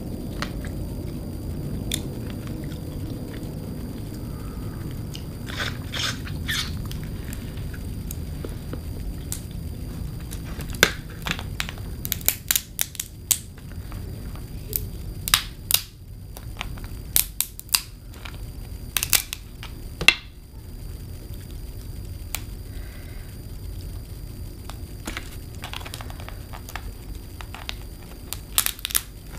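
Seafood shells being cracked and pulled apart by hand while eating: sharp cracks and snaps that come in clusters, over a steady low hum.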